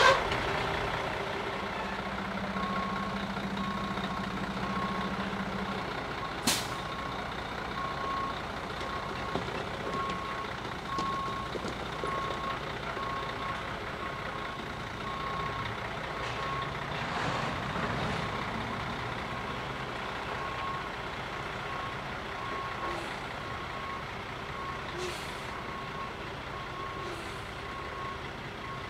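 A high-rail truck's backup alarm beeping about once a second as the truck reverses along the track, over its engine running. One sharp clank about six and a half seconds in.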